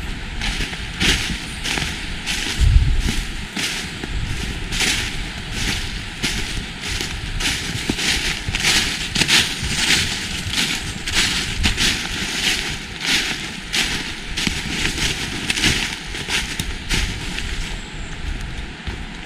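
A walker's footsteps crunching along an autumn forest path, about two steps a second, over a steady outdoor hiss; the steps fade near the end.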